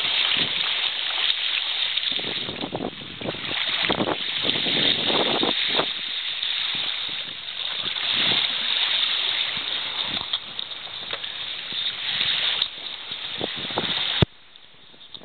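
Rushing, splashing water noise of a small sailboat under way, with wind on the microphone, rising and falling unevenly. It cuts off abruptly with a click about a second before the end.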